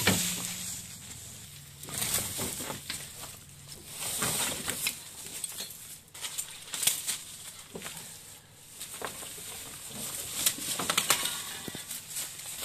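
Footsteps crunching and rustling through dry fallen leaves, in uneven bursts, with a denser flurry of crackling near the end.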